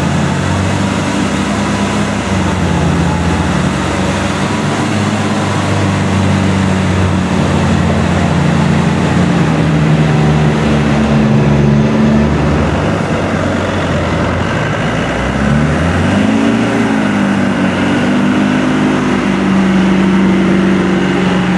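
Land Rover 4x4 engines straining under full load in first gear low range, pulling against a tractor's drawbar while the tyres spin in loose sand. The engine note holds steady, then rises and falls briefly about two-thirds of the way through.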